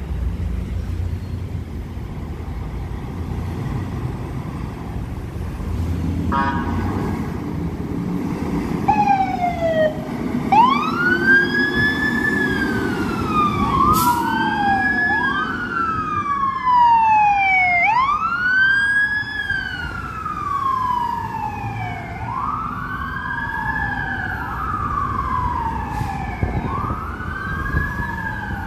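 City traffic rumble, then a short horn note about six seconds in, followed by a fire truck's siren wailing up and down about every two and a half seconds, with a second siren overlapping it. The fire engine's diesel engine rumbles under the sirens as the truck passes.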